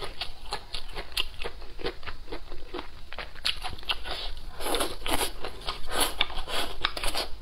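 Close-miked chewing with many crisp crunches and wet mouth clicks. A denser, louder stretch of crunching comes about two-thirds of the way in as more food is taken into the mouth.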